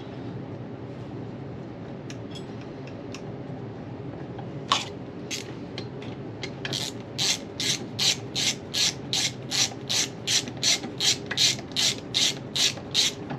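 Hand socket ratchet clicking in a regular run of strokes, about two to three clicks a second, running down a bolt in a transmission before it is torqued. A steady low hum lies underneath.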